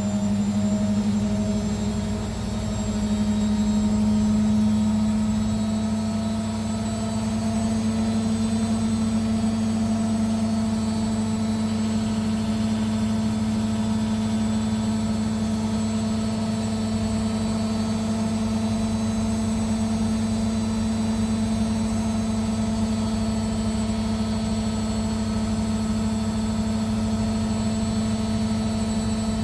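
Arctic APL61015XLW0 washing machine running its spin, a steady low drone and hum whose pitch steps up slightly about two seconds in.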